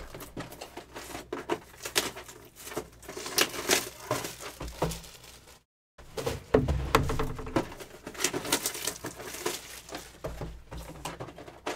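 Sealed, wrapped cardboard boxes of trading cards being handled on a table: scattered taps, knocks and rustles as the boxes are slid apart and lifted. The sound cuts out completely for a moment a little past halfway.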